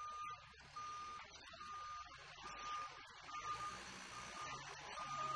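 Forklift's warning beeper sounding an even series of about seven beeps, each about half a second long and a little under a second apart. The machine's motor hums underneath, a little louder in the second half.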